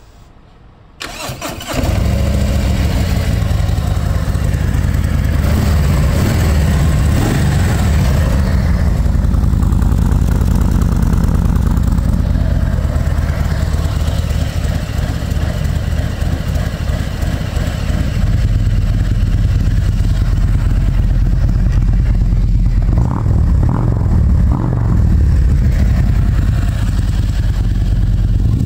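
Harley-Davidson trike's V-twin, fitted with a Jekill & Hyde exhaust, cranks briefly on the starter about a second in, fires and then runs at idle with a deep exhaust note.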